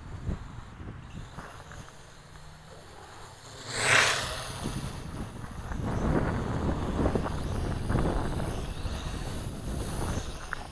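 Strong wind buffeting the microphone in gusts, with a sharp rush about four seconds in and heavier rumbling gusts after that.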